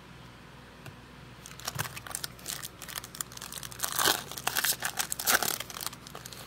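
Panini Prizm basketball card pack wrapper being torn open and crinkled by hand: quiet at first, then a run of irregular sharp crackles from about a second and a half in, loudest near the end.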